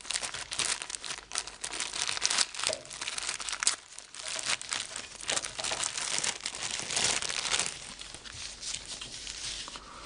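Clear plastic bag crinkling and rustling in irregular bursts as it is handled and a part is pulled out of it, dying down in the last couple of seconds.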